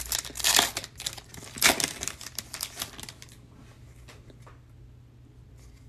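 Foil wrapper of a trading-card pack being torn open and crinkled in the hands, in a quick series of crackles. After about three seconds it gives way to faint ticks as the cards are handled.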